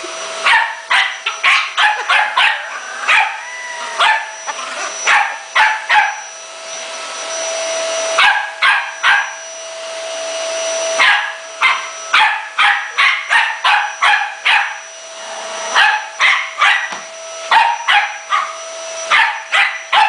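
A small dog barking rapidly and repeatedly at a running vacuum cleaner, whose steady whine carries on underneath. The barking stops twice for a second or two around the middle, leaving only the vacuum.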